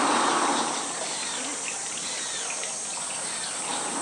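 Steady high-pitched drone of summer insects, with a brief rush of noise in the first half second.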